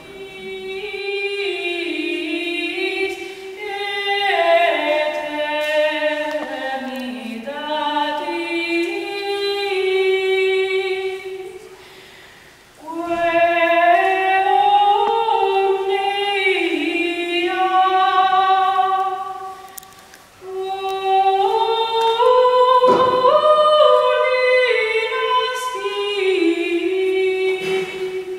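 A women's choir singing a cappella in slow, held phrases that step from note to note, pausing briefly twice.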